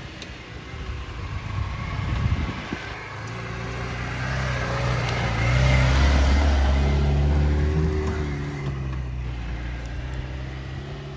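Lada Niva 1.7 four-cylinder petrol engine pulling the 4x4 slowly up a rocky trail, growing louder as it passes close by about halfway through and then easing off. Crunches and knocks of tyres on rocks in the first two or three seconds.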